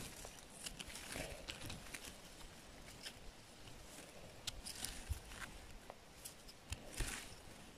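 Faint rustling, scraping and small clicks as a small knife trims and cleans the stem of a freshly picked chanterelle held in gloved hands.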